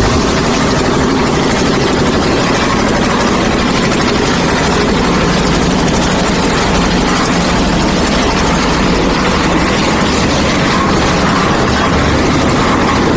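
Concrete mixer with hopper running steadily, a loud, continuous machine noise with no breaks or changes.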